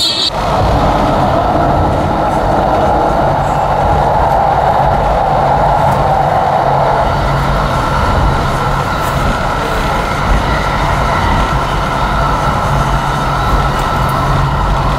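Steady running noise of a moving vehicle heard from inside the cabin: a constant low rumble and hum with a faint steady high whine.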